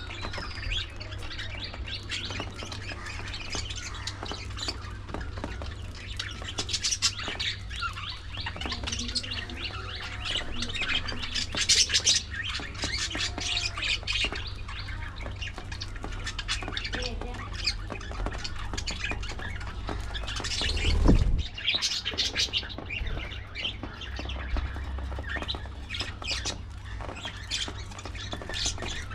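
A flock of budgerigars chattering, chirping and squawking continuously. There is a brief louder low thud about two-thirds of the way through.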